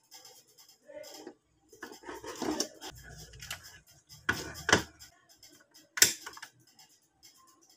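Handling noises on a wooden tabletop: a scattering of plastic clicks and knocks as a yellow digital multimeter, battery and wires are moved about and the meter is set down. The sharpest knock comes about six seconds in.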